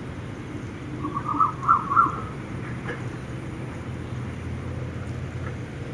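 A bird calling a short run of about six quick notes about a second in, over a steady low rumble of wind.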